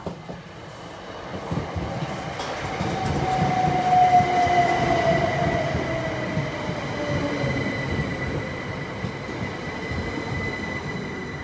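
Southern Class 377 Electrostar electric train running into the platform and slowing. Rolling noise builds to its loudest about four seconds in as the train draws level, with an electric whine falling in pitch and a steady high-pitched squeal.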